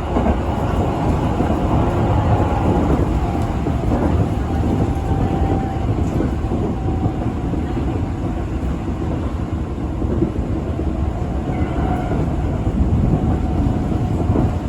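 Tobu Railway electric train running along the line, heard from inside: a steady low rumble of wheels and running gear with a faint motor whine.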